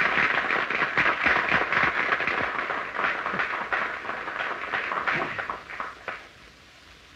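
Audience applauding as a song ends, dense at first and dying away over about six seconds, on an early sound-film recording.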